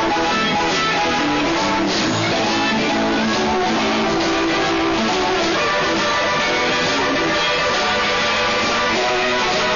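Live blues band playing an instrumental, with electric guitar out front over keyboard and drums.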